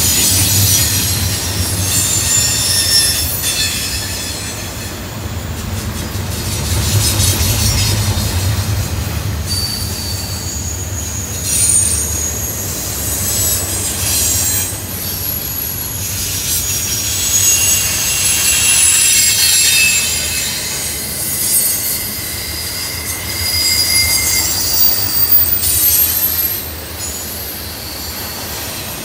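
Double-stack intermodal freight train rolling past on curved track, its wheels squealing in several high-pitched, shifting tones over the low rumble of the passing cars.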